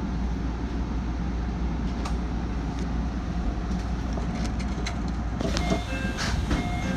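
Cab of an Aichi Loop Line 2000 series electric train slowing to a stop at a platform: a steady low rumble and hum. About five and a half seconds in come a few clicks and brief high tones.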